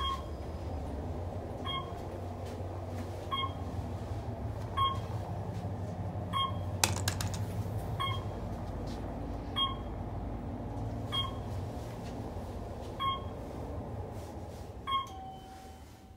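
Otis traction elevator car travelling, a short electronic beep sounding about every second and a half as it passes each floor, about ten in all, over the low steady hum of the ride, which builds at the start and fades near the end. One sharp click about seven seconds in, and a lower held tone just before the end.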